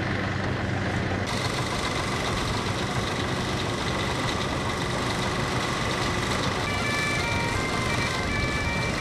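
Old combine harvester running steadily as its reel and cutter bar work through standing wheat, a dense mechanical drone. A simple tune of short notes plays over it, plainest from about seven seconds in.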